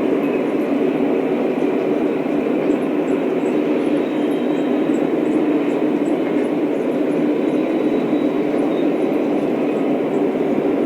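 Lionel O-scale model trains running on track: a steady rumble of wheels and motors.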